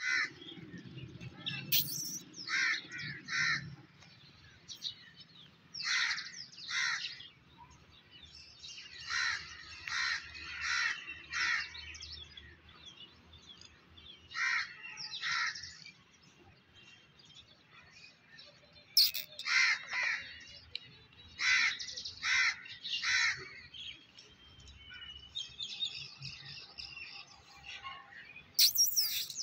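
Crows cawing in short runs of two to four harsh calls, again and again.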